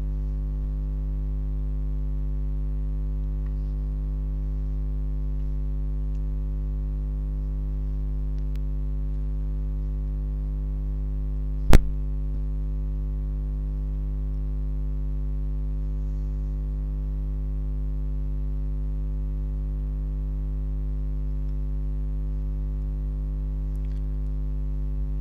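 Steady electrical mains hum picked up by the recording microphone, with a single sharp click a little before halfway through.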